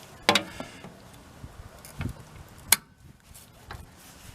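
A few sharp metallic clicks and knocks from a VW bus gas-door latch and tool being worked at by hand: one near the start, a duller knock about two seconds in, and another sharp click shortly after, with fainter ticks between.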